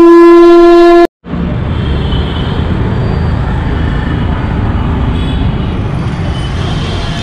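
A held electronic tone ends about a second in. After a brief gap comes steady city street traffic noise: motorbikes and cars running on a busy road.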